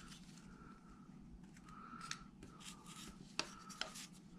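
The tip of a No. 11 carving blade makes a series of faint, short scraping cuts as it works into the corners of a wooden carving and pares out small bits of wood. Two sharp ticks come in the later part.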